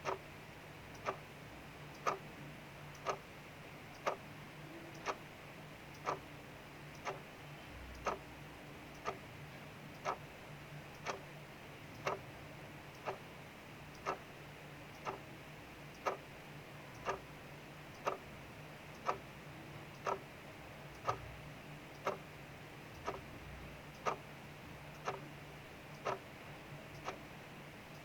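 Clock ticking at an even one tick per second, each tick a sharp click, over a faint steady hiss of rain.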